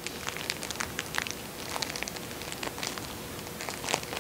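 Irregular light crackling and crinkling, many small clicks a second, of something crinkly being handled, over a faint steady hum.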